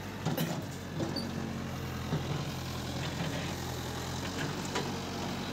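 Diesel engine of a Mahindra Arjun Novo 605 tractor running steadily, with a few short knocks over it.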